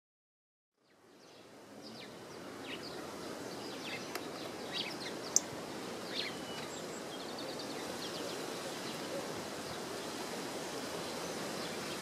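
Steady wind noise fading in about a second in, with scattered short chirps of small garden birds over the first half and one sharp tick about five seconds in.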